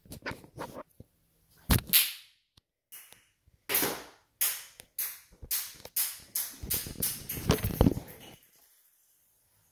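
Handling noise from a phone moved and gripped close to its microphone: a run of sharp knocks and rubs, about two a second in the middle stretch, stopping a little after eight seconds in.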